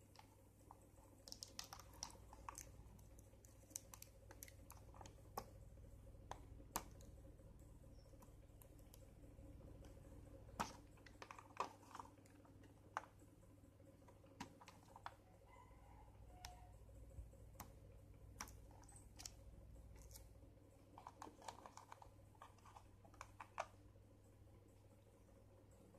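Irregular light clicks and taps of hard plastic as stationery pieces are worked out of a moulded plastic insert tray and handled.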